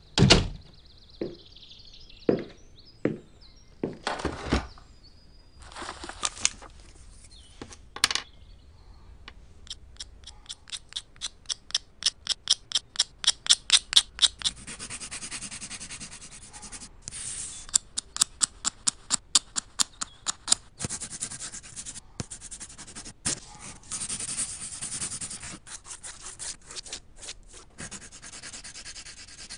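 Coloured pencil scratching on paper. First come a few separate knocks and scrapes, then a quick run of strokes, about five a second and growing louder, then longer stretches of rubbing and scratching as the pencil shades.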